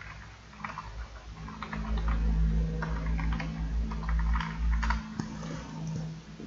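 Computer keyboard typing, a quick run of uneven key clicks, over a steady low hum that starts about a second in and dies away near the end.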